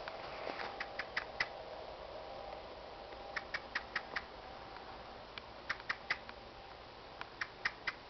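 Eurasian blackbird calling: short, sharp call notes in quick runs of four or five, repeated about every two seconds.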